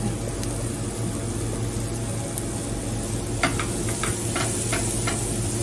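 Diced vegetables sizzling in a steel frying pan over a gas burner, with a steady low hum underneath. From a little past halfway, a spatula stirring the mix and knocking and scraping against the pan in a run of short clicks.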